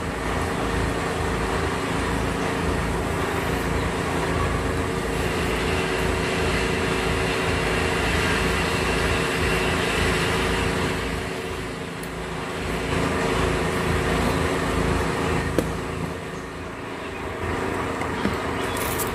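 A motor engine running steadily with a constant hum, growing louder through the middle and easing off twice later on, over a wash of traffic-like noise. A few faint clicks show now and then.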